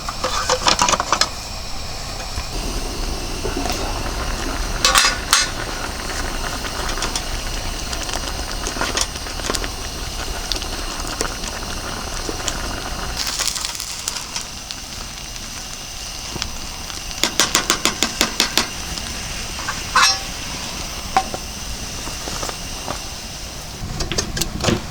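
Scattered clinks and clatter of dishes and cooking utensils over a steady low background, with a quick run of about ten light taps a little past the middle.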